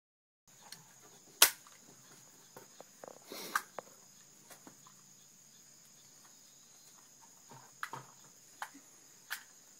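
A single sharp report from a Marlin .30-30 lever-action rifle about a second and a half in, followed by a brief rattle and a few lighter clicks. Insects chirr steadily throughout.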